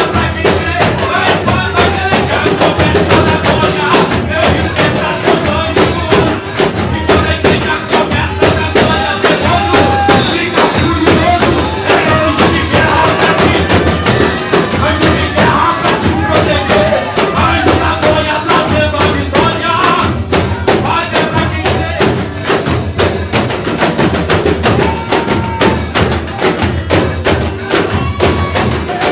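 Live church worship music: tambourines shaken and struck to a steady beat over drums, with a man singing into a microphone.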